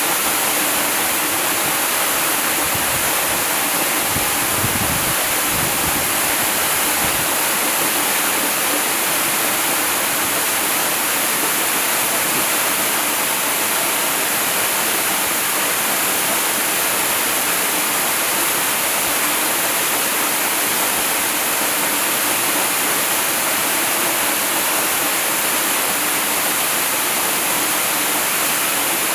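Waterfall: water falling and rushing in a steady, dense hiss with no let-up, with a little low rumbling a few seconds in.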